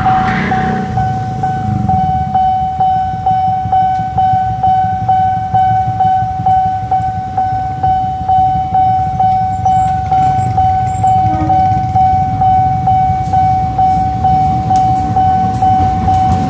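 Railroad crossing warning bell ringing on one steady pitch in evenly repeated strokes, with a low engine rumble underneath.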